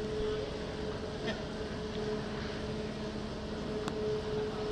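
Aerial ropeway machinery running: a steady mechanical rumble with a hum that swells and fades about once a second. A sharp click sounds near the end.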